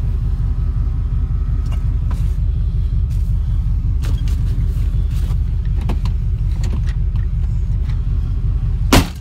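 A vehicle running with a steady low rumble, then one loud bang near the end: a vehicle door slammed shut.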